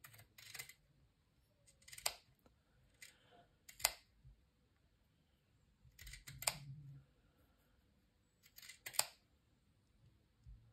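Small scissors snipping off bits of crocheted lace trim: short crisp snips in about six separate bursts, spaced a second or two apart.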